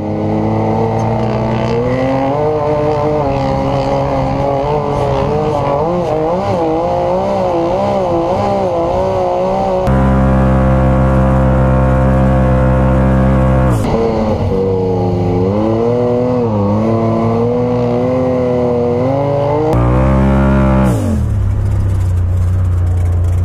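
Polaris RZR Turbo side-by-side's engine heard from the cockpit, its revs rising and falling with the throttle over the dunes. The revs hold steady for a few seconds mid-way, dip sharply, climb again, and drop to a low steady note near the end.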